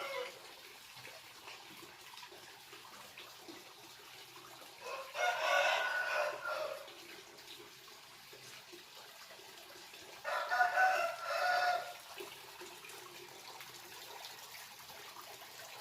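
Rooster crowing twice: one crow about five seconds in and another about ten seconds in, each lasting a second or two.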